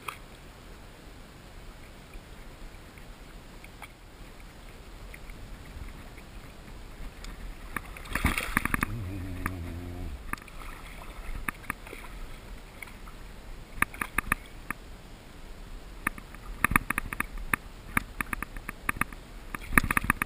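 Shallow sea water sloshing and lapping around a wading angler as a bonefish is held and released by hand. There is a louder burst about eight seconds in, and a run of sharp little splashes in the second half, thickest near the end as the hand works in the water.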